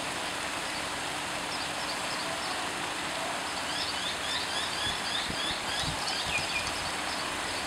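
Steady rush of water from a small waterfall, with a bird giving a quick series of short high chirps about halfway through.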